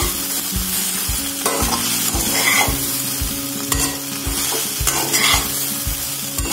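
Okra and potato pieces sizzling in a frying pan while a spatula stirs them, scraping and knocking against the pan about two to three strokes a second, mixing in dry mango powder at the end of cooking.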